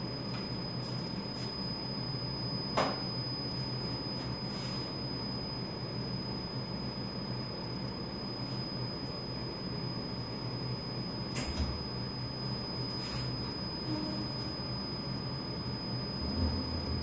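Drum coffee roaster running while it preheats: a steady hum of its drum and fans, with a few sharp clicks and knocks about three seconds in and twice more near eleven and thirteen seconds.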